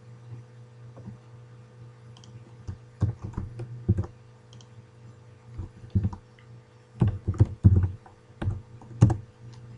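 Computer keyboard typing and clicking in irregular bursts, starting about three seconds in, over a steady low hum.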